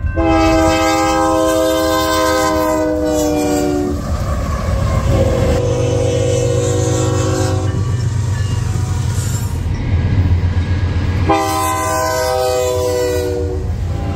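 Diesel freight locomotive sounding its multi-note air horn in three long blasts over the steady low rumble of the locomotive and train.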